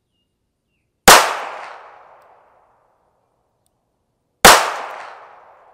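Two shots from a Taurus 856 .38 Special snub-nose revolver, about three seconds apart, each followed by a fading echo.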